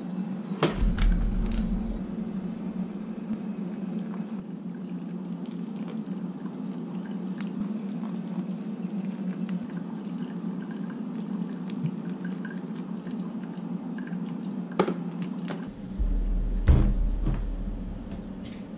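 Hot water poured from a glass kettle into a pour-over coffee dripper on a stainless steel tumbler, over a steady low hum. A few clicks and knocks come through, with low thumps about a second in and again near the end.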